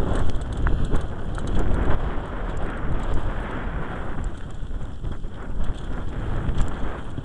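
Wind rushing over the microphone of a camera riding down a dirt downhill trail on a Giant Glory downhill mountain bike, with the bike's chain and frame rattling and tyres running over dirt and bumps in a steady stream of small clicks and knocks.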